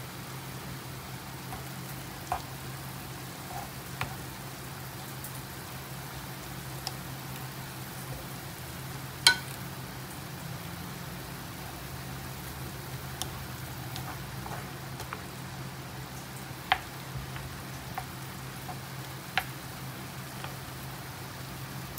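Beef bulgogi with mushrooms, carrots and onions sizzling and simmering in sauce in a frying pan while being stirred with a wooden spoon. The spoon knocks against the pan several times, loudest about nine seconds in, over a steady low hum.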